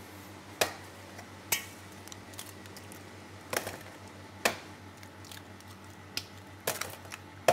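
Eggs cracked one after another against a stainless steel mixer bowl, sharp taps about one a second.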